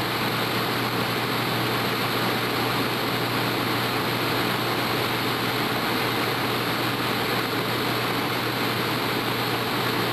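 Steady drone of running machinery with a low hum, unbroken and even.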